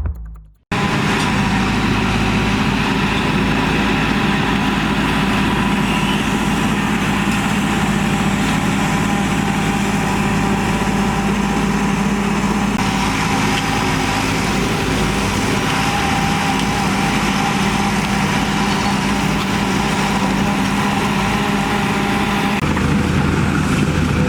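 Heavy diesel earthmoving machinery running at a steady engine note. It starts suddenly less than a second in and holds steady throughout.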